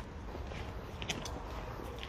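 Quiet street background: a steady low rumble with a few faint footsteps on the pavement, about a second in and again near the end.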